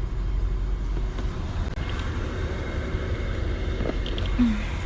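Steady low rumble inside a car with the engine running. About four seconds in there is one short, low vocal sound.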